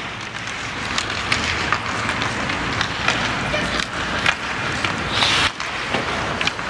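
Ice hockey play: skates scraping and carving across the ice, with repeated sharp clacks of sticks and puck, and a louder scraping hiss about five seconds in.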